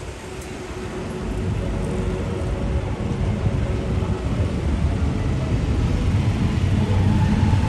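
Busy city-street traffic ambience: a steady low rumble of passing vehicles that grows steadily louder.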